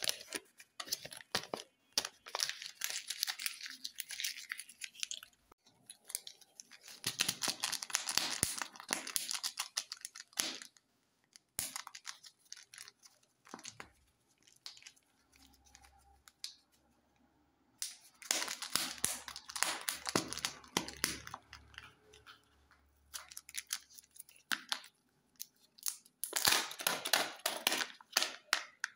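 Kinder Joy egg packaging handled by hand: the plastic foil wrapper and seal crinkling and being peeled or torn open, in four bursts with quieter pauses between.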